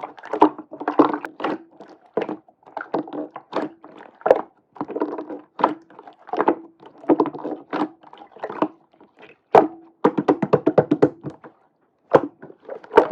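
Slime being squished and pressed by hand: a run of irregular wet clicks and pops, with a quick crackle of popping air bubbles about ten seconds in.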